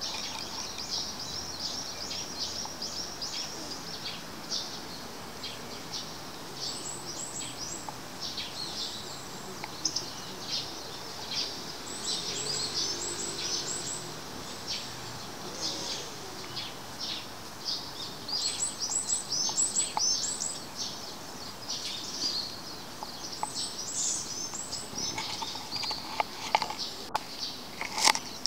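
Small songbirds chirping busily: many short, high calls in quick runs, some falling in pitch, going on throughout. Near the end, louder close rustling starts up as fur brushes against the microphone.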